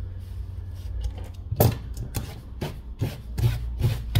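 Bristle brush swept briskly, giving a run of short scratchy rubbing strokes, about two or three a second, that start about a second and a half in, over a low steady hum.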